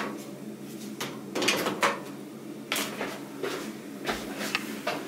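A handful of short knocks and rustles of hands handling a camcorder's power cable and packaging on a wooden desk, over a faint steady hum.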